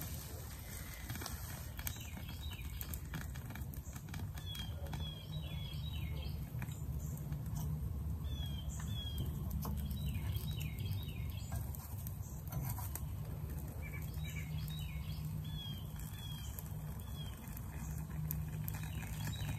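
Small wood fire crackling in a folding steel twig stove, with scattered light crackles over a steady low rumble. Birds chirp in the background in repeated short bursts of quick falling notes.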